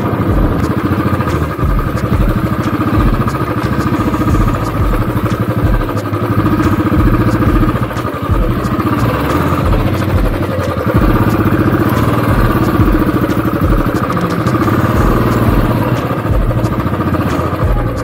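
Royal Enfield Classic 350's single-cylinder engine running steadily as the motorcycle rides along a dirt track, heard from on the bike.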